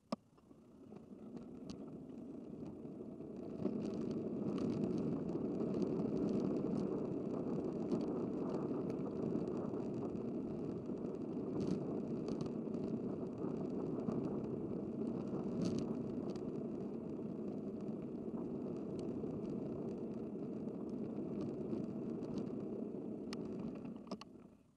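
Steady road and traffic noise heard from a moving bicycle, with scattered clicks and rattles. It starts with a click, grows louder over the first few seconds and cuts off abruptly at the end.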